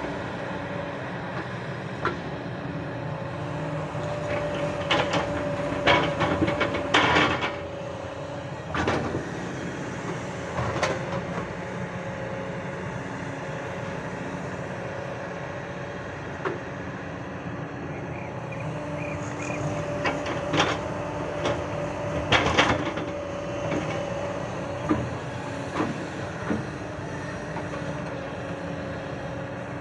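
Hyundai crawler excavator's diesel engine running steadily under load, with groups of knocks and scrapes as the steel bucket digs into dry earth and stones. The two loudest clusters of clatter come about a quarter of the way in and again about two-thirds through.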